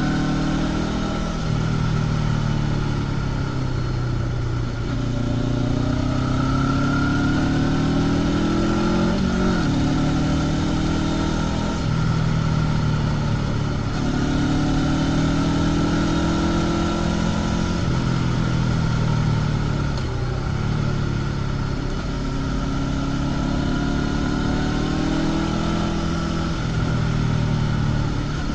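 Honda CB500X parallel-twin engine through its stock exhaust, heard from the rider's seat with wind rush. The revs climb and fall again several times as the bike accelerates and rolls off the throttle through bends.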